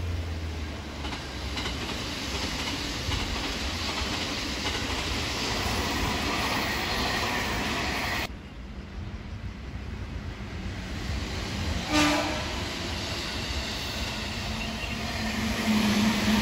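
Electric commuter trains passing on parallel tracks, a JR Central 313 series and a Meitetsu 2200 series, their wheels rumbling and clattering over the rails. A short horn blast sounds about twelve seconds in, and a steady low hum comes in near the end.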